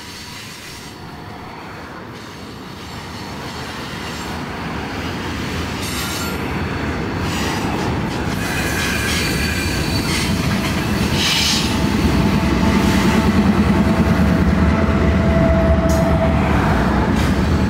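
Freight train rolling past on a curve: rumble of the cars and wheels with thin squeals from the wheel flanges. It grows steadily louder over the first dozen seconds and stays loud to the end.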